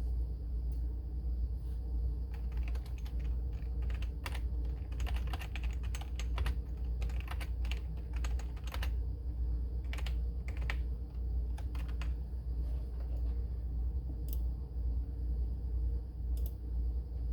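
Irregular plastic clicks from the keyboard and mouse of a homebrew 8088 PC being operated, coming in clusters and thinning out after about twelve seconds, over a steady low hum.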